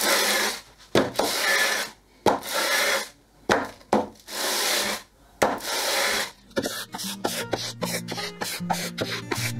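Stanley Sweetheart No. 5 wooden level, wooden sole and brass end caps, pushed back and forth over 120-grit sandpaper stuck to a bench: about six long sanding strokes of about a second each, taking down high spots to flatten the sole. Music takes over for the last three seconds.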